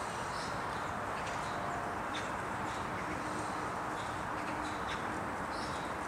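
Small birds chirping in short, scattered calls, several a second, over a steady background hiss.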